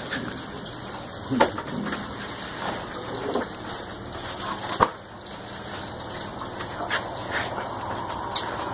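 Steady rush of running water at an outdoor fish-cleaning table, broken by a few sharp knocks and clicks.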